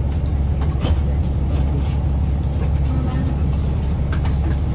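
A London bus's engine running with a steady low rumble heard from inside the cabin, with a few faint clicks and rattles.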